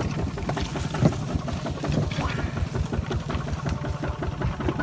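Small engine running steadily with a rapid, even beat.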